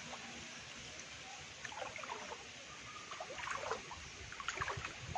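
Faint floodwater trickling and sloshing, with a few small splashes scattered through.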